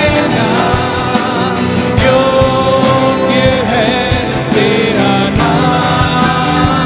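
Worship band playing an instrumental passage: a PRS Tremonti electric guitar through a Marshall amp plays a lead line of bent, wavering notes over drums and bass.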